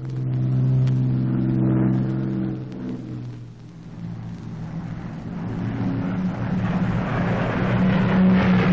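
Radial piston engine of a Blackburn Skua droning in flight. It is loud at first, dips about three and a half seconds in, then swells with a rising rush to its loudest near the end as the aircraft comes overhead.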